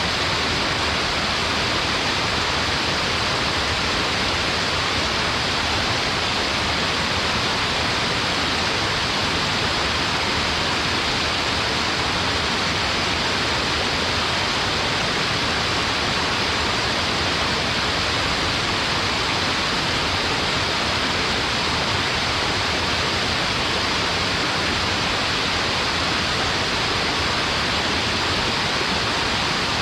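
Waterfall: water falling and splashing in a steady, unbroken rush, strongest in the mid and upper range.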